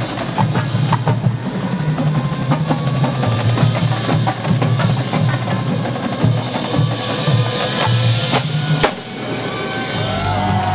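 High school marching band playing a percussion-heavy passage of its field show: drums and sharp, rapid strikes over low sustained band sound. Shortly before the nine-second mark comes a pair of loud accented hits, the sound drops briefly, and a new phrase with melodic lines starts near the end.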